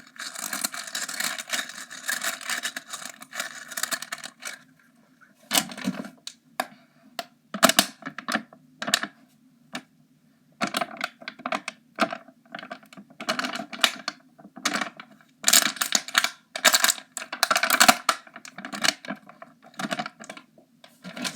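A bead fidget toy being handled, its beads clicking and rattling against each other in irregular bursts. The rattling is densest near the start and again about two-thirds through, with quieter gaps of single clicks between.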